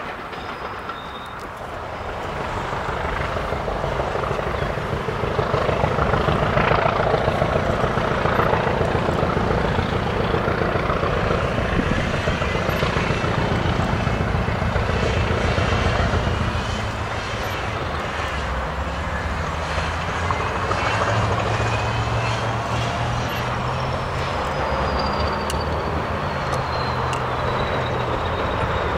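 Diesel locomotive hauling a passenger train along the line, its engine a steady low drone. It grows louder a few seconds in and again in the second half as the train comes nearer.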